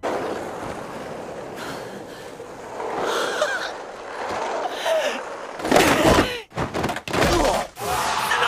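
Crowd cheering and yelling, many voices at once, getting louder; between about six and eight seconds in, a run of loud, choppy noise that cuts in and out.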